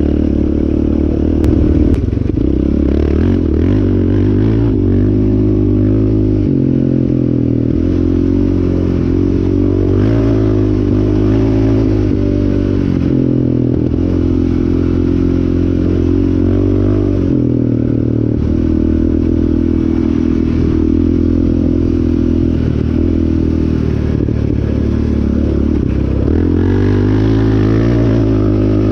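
Yamaha Raptor 700R sport quad's single-cylinder engine running hard as the quad is ridden, its pitch rising and falling again and again with throttle and gear changes.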